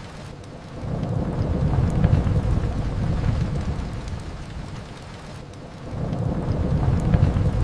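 Rain falling steadily, with faint drop ticks, overlaid by two low rolling rumbles, one about a second in and another near six seconds, each swelling and fading over a few seconds.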